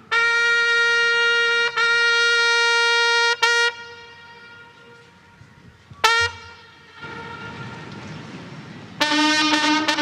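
Brass call in the open air: two long held notes on the same pitch, a short note, a pause, and another short note. About a second before the end, a brass band starts a faster phrase of several notes.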